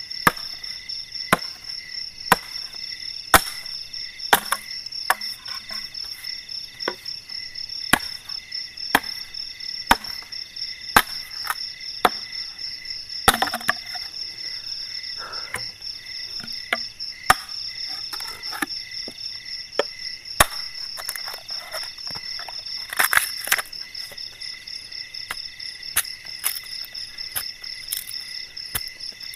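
A machete chopping and splitting bamboo and firewood: sharp strikes about once a second, with a quick cluster of blows a little after twenty seconds in. A steady, pulsing chorus of night insects runs underneath.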